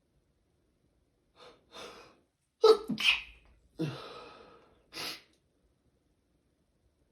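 A person's sneezing fit: two short catching in-breaths, then a loud sneeze about two and a half seconds in, followed by two weaker sneezes or blows of breath.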